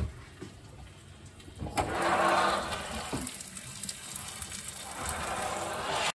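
Skipjack tuna fillet sizzling in a cast-iron skillet under a gas broiler flame; the hiss comes in sharply a little under two seconds in and stays steady after.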